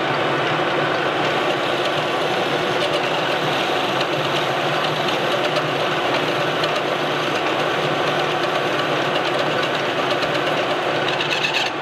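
Metal lathe running steadily while a hand-ground high-speed-steel parting tool is fed by hand into a turning shaft, cutting a groove to about half-inch depth.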